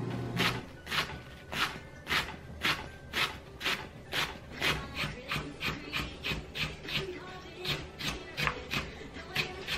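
Kitchen knife chopping through shredded cabbage and then sliced apple on a plastic cutting board. Each stroke is a sharp knock of the blade on the board, in a steady run of about two a second.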